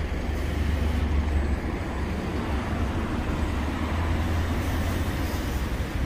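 Road traffic and double-decker bus engines running, a steady low rumble under a constant haze of traffic noise.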